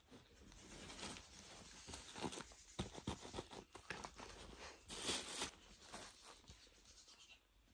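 Faint rustling of clothes and plastic bags packed in a suitcase as a hand presses and arranges them, with a louder crinkle about five seconds in.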